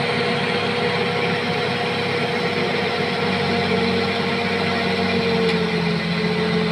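Bulldozer's diesel engine running steadily, its pitch sagging slightly about five and a half seconds in and then recovering.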